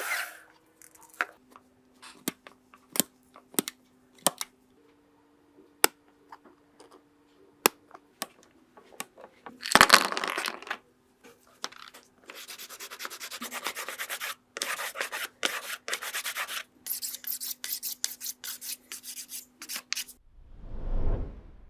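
Hand work on a rusty die-cast metal model car: scattered light clicks and taps, a loud scrape about ten seconds in, then a long run of quick rubbing strokes like sanding.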